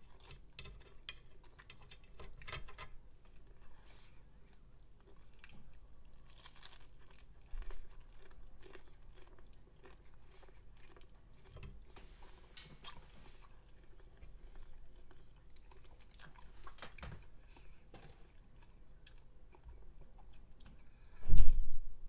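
Close-up chewing and biting of a breaded fried fish fillet: wet mouth sounds with small crunches. Near the end comes one brief, much louder sound as a glass of ice water is drunk from.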